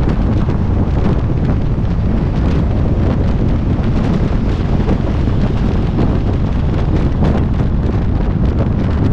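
Loud, steady wind buffeting the microphone, a continuous low rumble with no distinct engine note.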